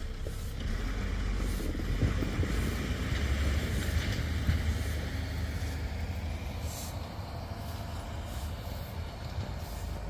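Engine of a small snow-removal vehicle running steadily, a continuous low rumble, during snow clearing.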